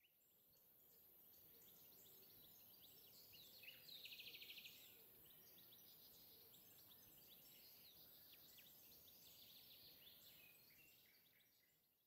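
Very faint background of birds chirping and calling, with a quick trill about four seconds in. It fades in at the start and fades out near the end.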